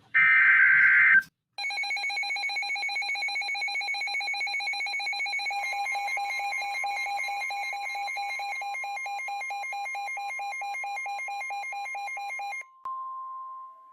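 A weather alert radio's built-in alarm sounding a rapid, evenly pulsing electronic beep for about eleven seconds, set off by a NOAA Weather Radio severe thunderstorm warning. It comes straight after a short buzzing burst of the warning's digital SAME header. About four seconds into the beeping, the station's steady warning alarm tone joins underneath, and it runs on alone for a moment after the beeping stops.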